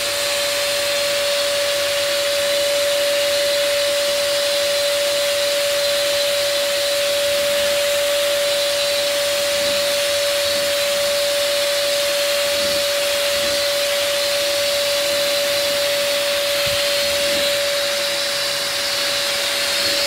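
Handheld electric blower running steadily, a constant high whine over a rush of air, blowing the husks and dust out of a bird seed mix.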